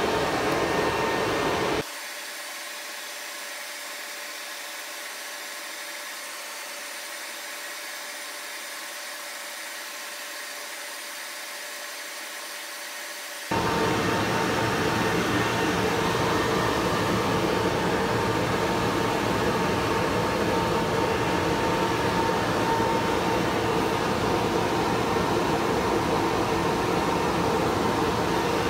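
Steady whooshing hum of running cooling fans. From about two seconds in it turns quieter and thinner, then comes back full and abruptly about halfway, with a faint steady whine over it.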